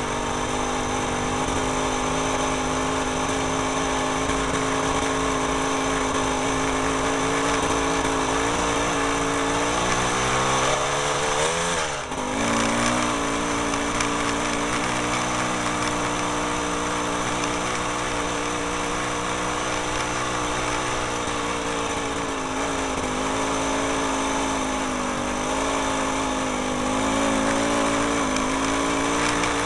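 A small engine running steadily. About ten seconds in, its pitch climbs, then drops sharply with a brief dip in level, and it settles back to a steady note.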